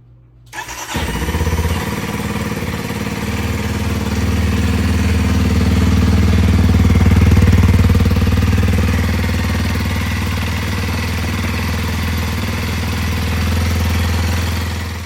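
Kawasaki KLX230's single-cylinder four-stroke engine cranking and catching about a second in, then idling steadily, run after a fresh oil change. It is switched off just before the end and stops suddenly.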